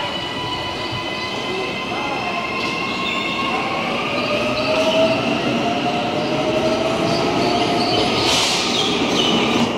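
Auckland AM-class electric multiple-unit train at a station platform, its electric drive whining with steady high tones and one tone that rises in pitch from about four seconds in as the train gets moving. A short burst of hiss comes near the end.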